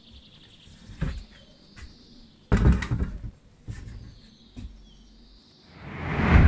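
A rusty metal boiling stove is set down on a bench with a heavy thump and a short rattle, among a few lighter knocks and clicks. Near the end a rising whoosh builds up.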